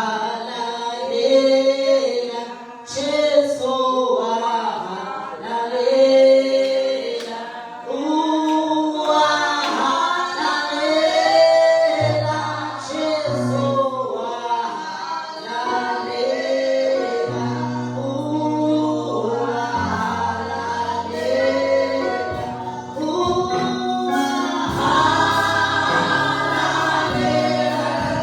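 A church choir singing a gospel worship song with many voices, women's voices among them. About twelve seconds in, sustained low instrumental notes join under the voices and change every few seconds.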